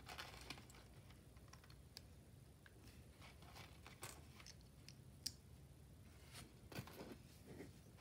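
Faint, scattered clicks and taps of small plastic LEGO pieces being handled and fitted together.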